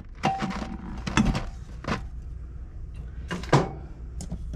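Items being moved about on a cupboard shelf: bottles, cans and cartons knocking and clunking, about five separate knocks, the loudest about three and a half seconds in.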